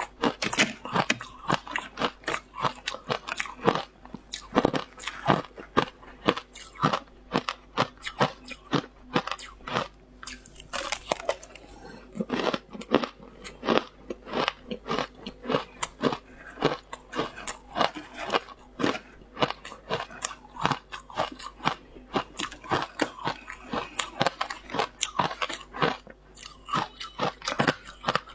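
Frozen matcha ice being bitten and chewed, with a dense, irregular run of sharp crunches, several a second.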